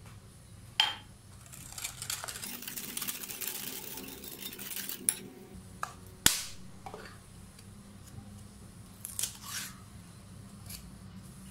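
Wire whisk beating milk into an egg, sugar and oil batter in a glass mixing bowl: a few seconds of rapid swishing and clinking against the glass. Sharp knocks, the loudest about a second in and about six seconds in, with a few lighter ones near the end.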